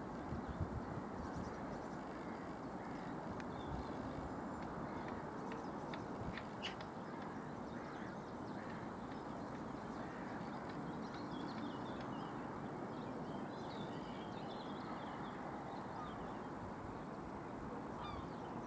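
Outdoor ambience: a steady background rush with small birds chirping on and off, most busily in the middle and later part, and a few light clicks.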